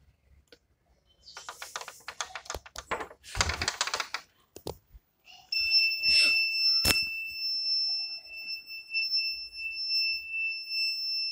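Piezo buzzer of an Arduino PIR motion-detector alarm sounding one steady high-pitched tone from about halfway through, set off by movement at the door. Before it, a metal door bolt rattles and clicks as it is worked.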